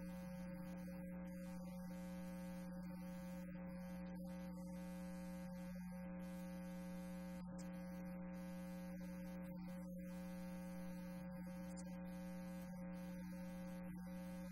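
Steady electrical mains hum: one low buzzing tone with a stack of overtones, unchanging in pitch and level.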